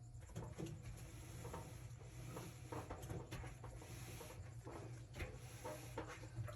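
Faint, irregular clicks, taps and short rubbing sounds of dryer parts being handled during reassembly, over a low steady hum.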